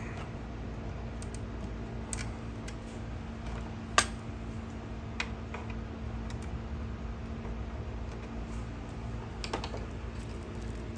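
Scattered small clicks and rattles of hands working nylon zip ties and wiring, with one sharper snap about four seconds in and a few quick clicks near the end, over a steady low hum.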